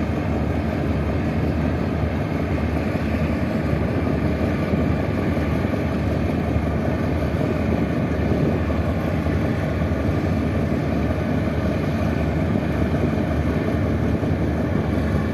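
Steady, unbroken drone of a boat's engine, with the wash of water mixed in.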